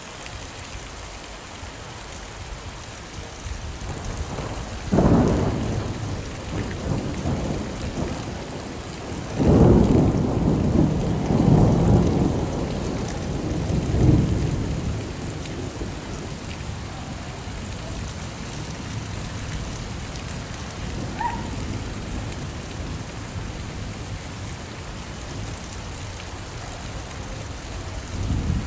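Steady rain falling, with rolls of thunder: a short rumble about five seconds in, a longer rolling rumble from about nine to fifteen seconds, and a brief one near the end.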